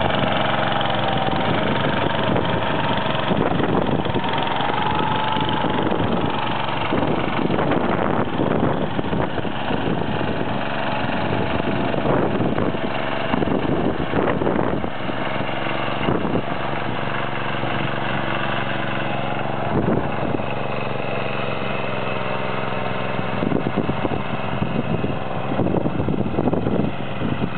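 Small single-cylinder engine of a walk-behind power weeder running steadily under load while its rotary tines churn the soil, with irregular knocks through the engine note.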